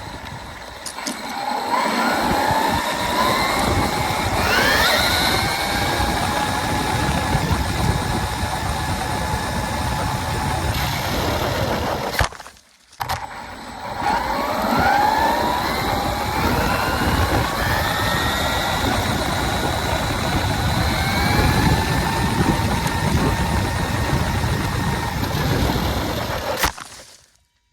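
Brushless motor of a Hosim X07W RC car whining as the car accelerates hard: the whine climbs in pitch, then holds steady at speed over a rough rushing noise. It cuts out briefly about halfway, then a second acceleration run climbs and holds the same way before stopping abruptly near the end.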